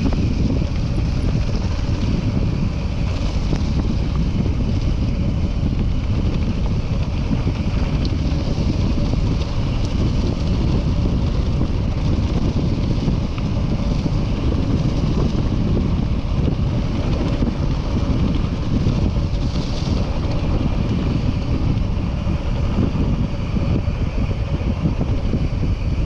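Wind buffeting the microphone of a camera on a mountain bike during a trail descent: a steady, loud rumbling rush with no breaks.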